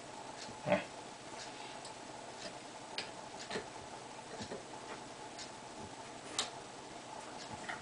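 Small, irregular metal clicks and taps as a hex key turns the clamping screws that hold a boring bar in a four-way lathe tool post; the loudest clack comes about a second in.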